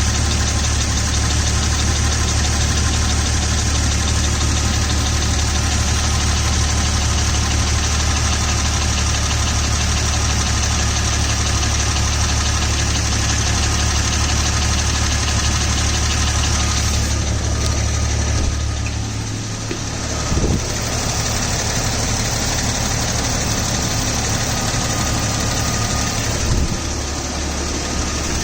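A 2000 Jeep Cherokee XJ engine idling steadily with a slight tick from low at the rear of the engine, a tick that goes away off idle and which the owner suspects is the flexplate. About two-thirds of the way through the sound dips briefly, and two short thumps follow.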